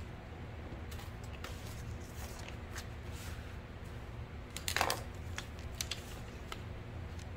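Paper pattern piece and vinyl bag panel being handled: soft rustles and light clicks, with one louder crinkle about five seconds in, over a steady low hum.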